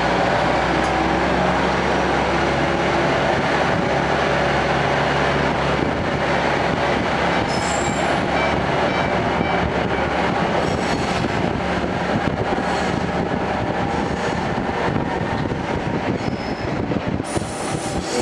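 TH3501 diesel railcar heard from inside the cabin as it pulls away: a steady engine drone and running noise on the rails. High-pitched wheel squeal sets in several times from about seven seconds in.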